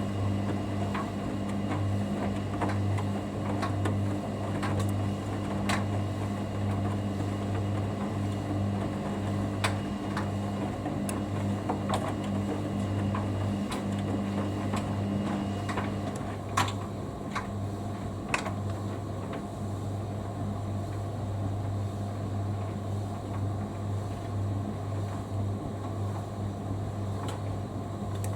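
Hoover Dynamic Next washer-dryer on its main wash: the drum motor hums steadily as the drum turns, with scattered light clicks and knocks. About sixteen seconds in, the motor's note changes.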